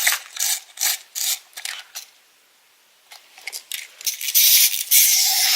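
Plastic toy and packaging being handled, with a quick run of scrapes and clicks, then a pause. About four and a half seconds in, a steady hiss starts up and becomes the loudest sound.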